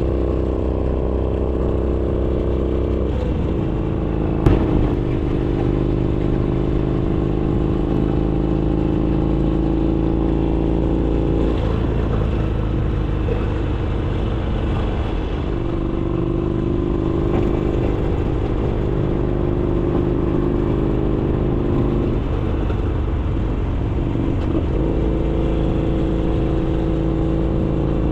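Harley-Davidson Sportster Iron 883's air-cooled V-twin running through a Roland Sands Design 2-into-1 exhaust on the move, its note stepping up and down several times with throttle. A single sharp knock about four and a half seconds in.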